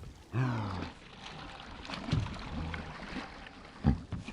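Water moving around a kayak, with a short falling grunt-like vocal sound about half a second in and a couple of sharp knocks later on.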